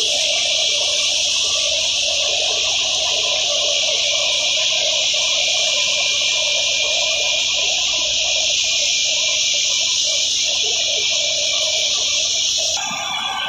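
Tractor-powered wheat thresher running while wheat straw is fed into it: a dense, steady high hiss over a fluctuating lower noise. The sound changes abruptly shortly before the end.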